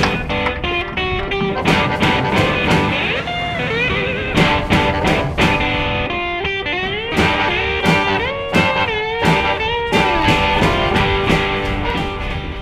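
Background music with a guitar lead playing bent, sliding notes over a steady backing.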